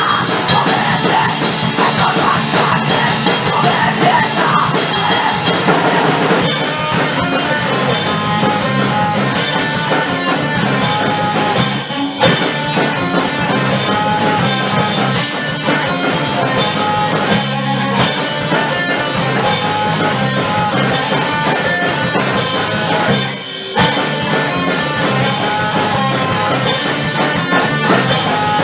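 Punk/crust band recording: drum kit and distorted electric guitar playing hard and fast, with brief breaks about 12 and 23 seconds in.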